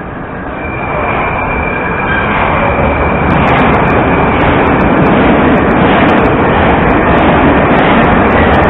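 Metro train, a Moscow Metro 81-765 "Moskva" type, pulling out of the station. Its rumble and wheel noise build over the first three seconds to a loud, steady run, with a thin high whine that fades out about three seconds in.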